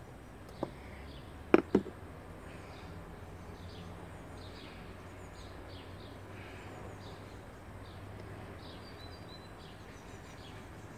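Small birds chirping on and off over a steady low background hum, with two sharp knocks about a second and a half in.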